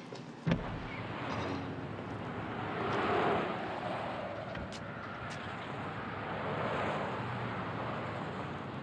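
A steady rushing noise like street traffic, swelling about three seconds in, after a single sharp knock about half a second in.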